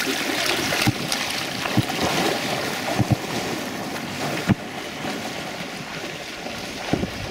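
Water sloshing and splashing as a dog swims out across a pond, growing fainter as it moves away, with a few soft low thumps.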